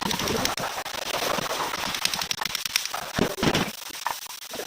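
A rapid, irregular run of sharp clicks and knocks, thickest about three seconds in.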